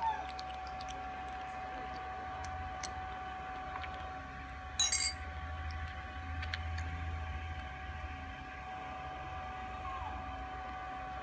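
A metal feeding spoon clinks sharply against a container once, about halfway through, over a steady background hum with a constant high tone and a few faint ticks.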